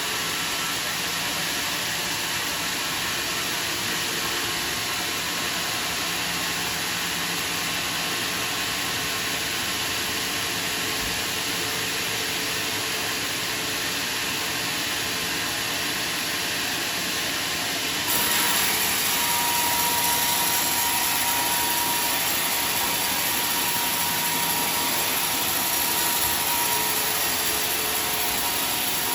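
Sawmill saw and machinery running with a steady, dense noise. About two-thirds of the way through it grows louder and a steady high whine joins it.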